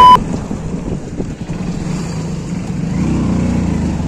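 Motorcycle engine running as the bike is ridden slowly along a street, getting a little louder about three seconds in. A loud steady beep cuts off right at the start.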